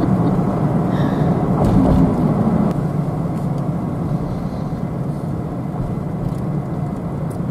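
Pickup truck running down a paved road, heard from inside the cab: a steady low engine hum with tyre and road noise. The sound eases off a little about three seconds in as the truck slows toward an intersection.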